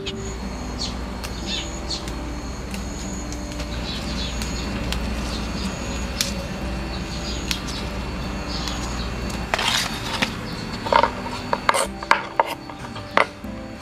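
A kitchen knife chopping red chilies on a wooden cutting board, a run of sharp knocks starting about 11 seconds in. Before that, light rustling of basil stems being handled over a steady low hum.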